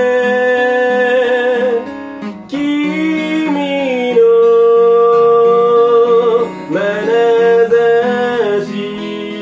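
A slow ballad sung in Japanese: a singer holds long notes with slight vibrato, changing pitch every couple of seconds, over guitar accompaniment.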